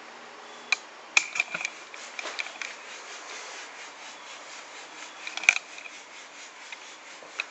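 Irregular scratching and rubbing with sharp clicks over a steady hiss. It is busiest in the first few seconds, and the loudest click comes about five and a half seconds in.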